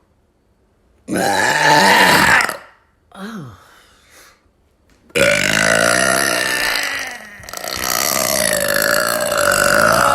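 A person burping loudly and deliberately. A burp of about a second and a half starts about a second in, a short one falls in pitch around three seconds, and then a long drawn-out burp runs from about five seconds on, dipping briefly partway through.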